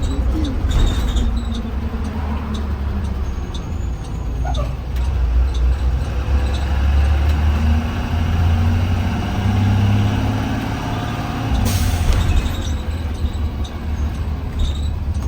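Blue Bird Vision school bus running and pulling as it accelerates, its low engine drone swelling and rising in pitch through the middle. About twelve seconds in comes a short, sharp hiss of released air from the air brake system.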